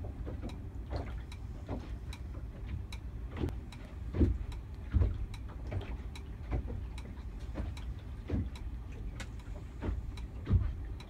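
High wind buffeting a boat, heard from inside the cabin as a steady low rush, with many small irregular clicks and ticks as the boat rocks and a few louder knocks and bangs, about four and five seconds in and again near the end.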